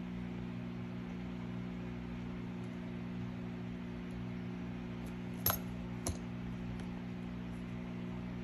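Steady low electrical hum, with two sharp clicks a little over half a second apart midway through as small hard objects are set down on the repair workbench.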